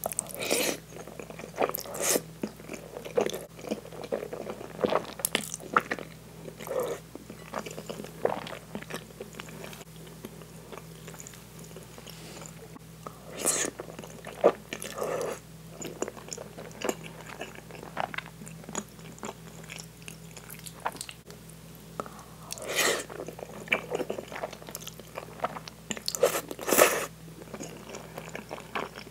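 Close-miked eating of meat-sauce spaghetti: wet chewing and smacking, with louder bouts of slurping noodles near the start, about halfway through and again near the end.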